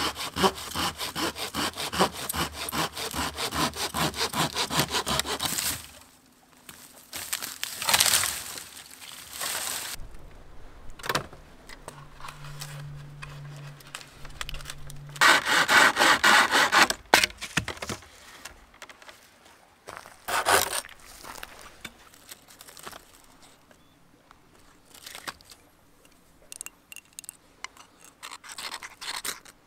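Hand saw cutting through a branch in quick back-and-forth strokes, about three a second, stopping about six seconds in. A couple of louder rustling bursts follow, around eight and sixteen seconds in, and near the end there are only faint light scrapes.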